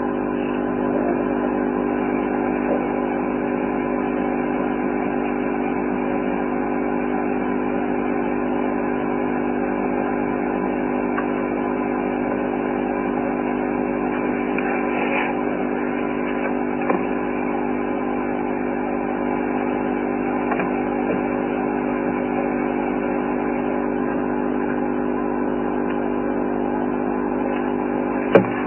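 A steady mechanical hum of several fixed tones, unchanging throughout, with a few faint clicks near the end.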